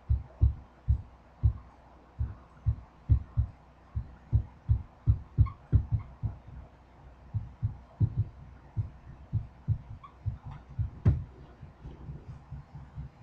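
Red dry-erase marker writing on a whiteboard, heard as an irregular string of dull low thumps, about two or three a second, as each stroke presses on the board.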